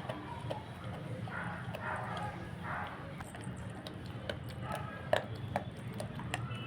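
Pitbull puppy chewing raw meat: irregular wet smacking and sharp clicks of its teeth, the sharpest about five seconds in.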